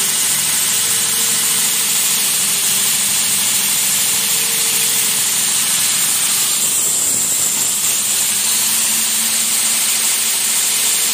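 Belt grinder running steadily, its electric motor driven through a frequency converter, with some noise from the abrasive belt itself running over the wheels.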